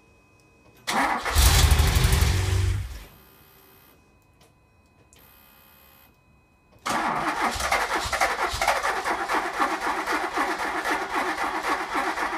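DeLorean DMC-12's 2.85-litre PRV V6 on its first start attempt after restoration: a loud, low burst of about two seconds, then after a pause a longer run of steady, rhythmic cranking lasting about six seconds.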